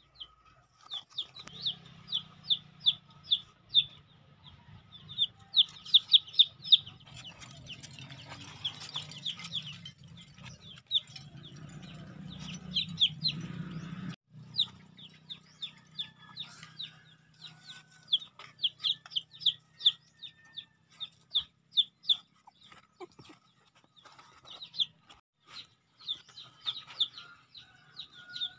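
Bird peeping in quick runs of short, high chirps, several a second, with brief pauses between runs. A low steady hum runs under the first half and cuts off suddenly about halfway through.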